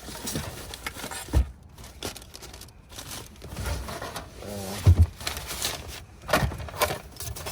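Things being handled and moved around in a car trunk: scattered knocks and thuds with rustling in between, the loudest thud about five seconds in.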